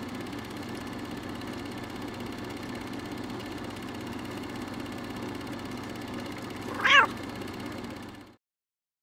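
A single short cat meow about seven seconds in, over a steady low rumbling background noise.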